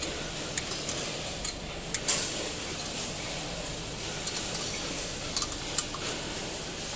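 Metal spanner clinking and clicking against the steel bolts and stainless-steel plates of a tray denester as a bracket is loosened and adjusted: a scattering of short sharp clinks over steady background noise.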